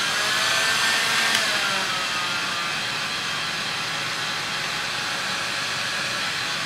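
Electric heat gun blowing steadily, shrinking heat-shrink tubing onto a fishing-rod section; a faint motor whine drops slightly in pitch in the first two seconds.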